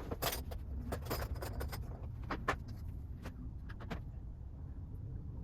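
Metal hand tools clinking and clattering while being picked up and sorted through. There is a quick run of clicks in the first two seconds and a few more about two and a half and four seconds in, over a steady low rumble.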